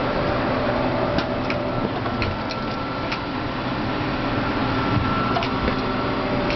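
Air-conditioning unit running with a steady hum and rush of air, with a few faint light clicks through it.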